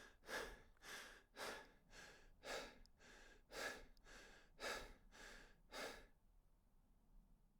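Rapid, rhythmic breathing, in and out about once a second, that stops about six seconds in, leaving faint hiss.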